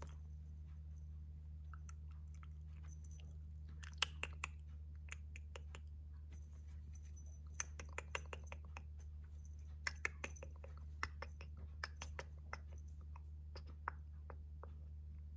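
Kitten chewing and scuffling on a cloth mat: irregular small clicks and crackles, the sharpest about four seconds in, over a steady low hum.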